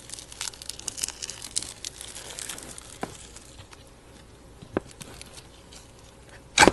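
Slime being squeezed and stretched by hand, crackling with many small clicks for the first few seconds, then a few separate pops, the loudest near the end.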